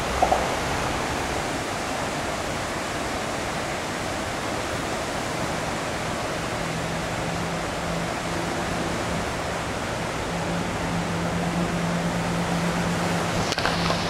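Fast-flowing floodwater of a creek in flood, a steady rushing wash of water, with one brief sharp sound just at the start.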